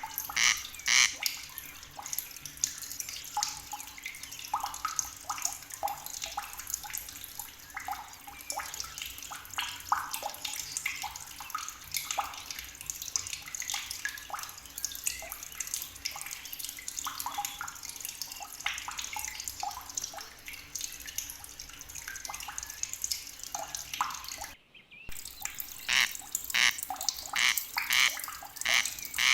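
Outdoor nature ambience of frogs croaking in fast pulsing runs, loudest near the start and again in the last few seconds, with scattered short calls in between. The sound drops out briefly about 25 seconds in, then resumes.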